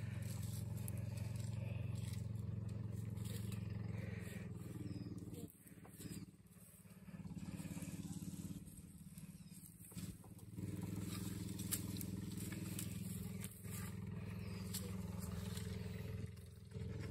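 Vehicle engine running steadily at a low hum, its sound dropping away for about a second around five seconds in and briefly a few more times before picking back up.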